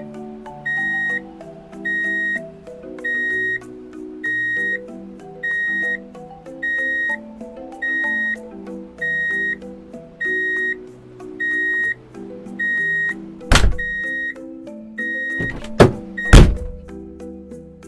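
A simple electronic tune with a high beep repeating about every 1.2 seconds. Three loud sharp knocks come near the end.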